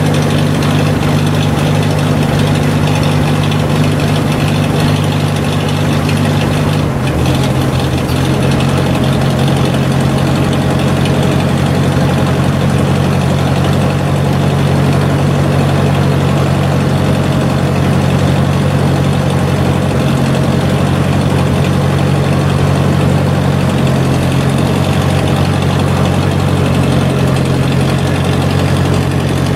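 A 1956 Ford tractor's engine running steadily at idle, close by. Its engine speed shifts slightly about seven seconds in, then holds steady again.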